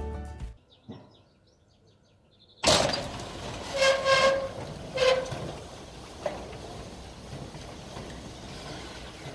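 Background music fades out, then after about two seconds of near silence a metal roller shutter door starts rolling up with a steady rattling rumble, with two short squeals a little later.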